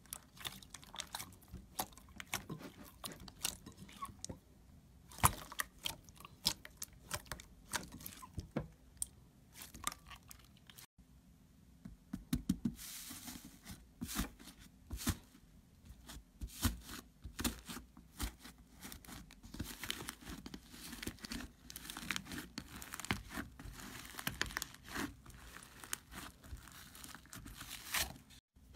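Slime being squeezed and pressed by hand, giving a dense, irregular run of crisp crackles and pops, with a short break about a third of the way in.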